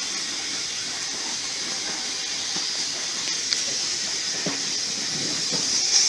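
Heritage railway train moving slowly along the track, with a steady high hiss that grows louder near the end and a few faint clicks and knocks from the wheels on the rails.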